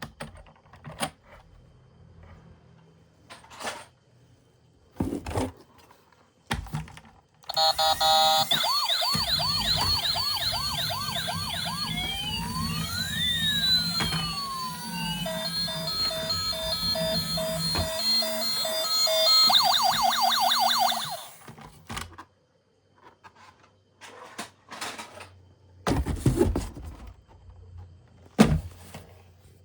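Battery-powered toy vehicle's electronic siren, running through several patterns for about fourteen seconds: a fast warble, crossing rising and falling wails, a two-tone hi-lo, then the fast warble again. Scattered knocks come before and after it.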